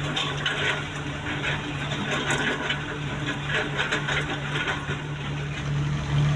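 An excavator's diesel engine running with a steady hum, with irregular rattling and scraping from the machine at work over it; the engine grows louder near the end.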